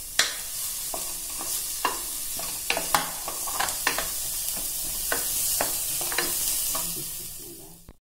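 Chopped onion and garlic sizzling in butter over a high flame in a nonstick pressure-cooker pan, with a wooden spatula scraping and clicking against the pan bottom as it stirs. The sizzle fades away near the end.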